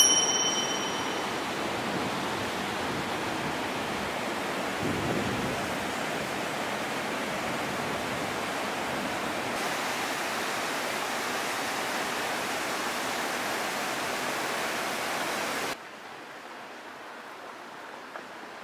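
River water rushing over rocky rapids: a steady, even rush that drops off suddenly near the end to a much fainter outdoor hush.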